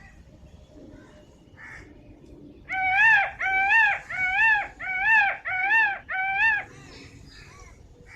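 Peafowl calling: six loud, nasal, arching calls in quick even succession, each about half a second long.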